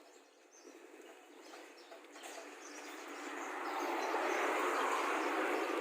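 Vehicle noise, a rushing sound that swells from about two seconds in and is loudest near the end, as a vehicle comes along the road.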